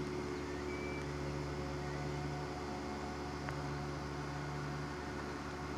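Steady low hum with several faint tones over a light hiss, with one faint tick about three and a half seconds in.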